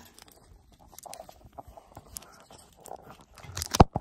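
Garlic sausage being cut into a chunk by hand: scattered small cutting and handling noises, then one sharp knock near the end.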